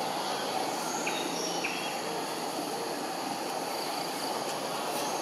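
Steady outdoor background noise, a constant low-to-mid hiss, with a few faint short high chirps about a second in and again near the end.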